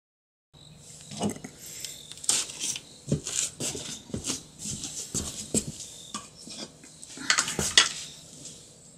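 Irregular clinking and clattering knocks, starting after a brief silence, with a louder cluster of clinks about seven and a half seconds in.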